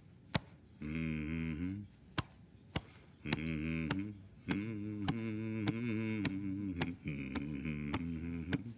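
A man humming a low, rhythmic 'mm-mm' chant in phrases while beating his fist against his chest, the sharp thumps landing about twice a second. The humming comes in short bursts at first and runs almost unbroken from about three seconds in.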